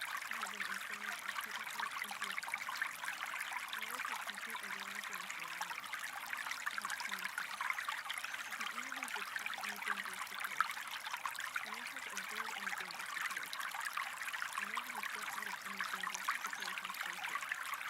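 Steady running water, like a trickling stream, with a faint, low voice murmuring underneath it in short phrases.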